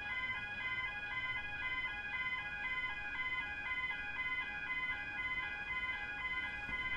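Railway level-crossing electronic alarms (Barker Technic Type 2 bells and overpowering alarms) ringing together in a steady repeating pattern, one tone stepping between two pitches about twice a second. The active alarms warn of an approaching train.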